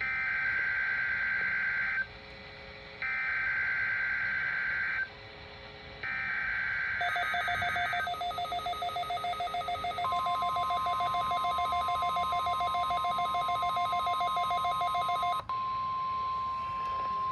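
NOAA Weather Radio SAME alert header: three screechy digital data bursts, each about two seconds long, a second apart, marking the start of a required weekly test. About seven seconds in, a rapidly pulsing electronic beep joins. From about ten seconds a steady 1050 Hz warning alarm tone sounds and holds.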